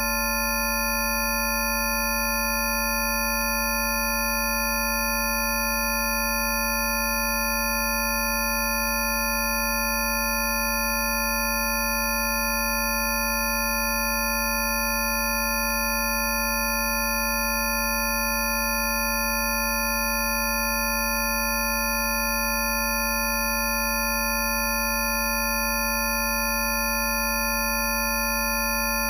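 A dense, unchanging chord of electronically generated sine tones at many fixed pitches, from a deep low hum up to very high, thin whistles: a stack of Rife healing frequencies played together as a continuous drone.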